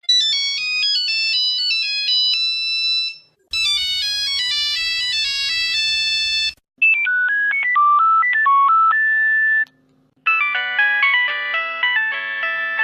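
Phone ringtones: four different short electronic melodies play one after another, each about three seconds long with a brief pause between them.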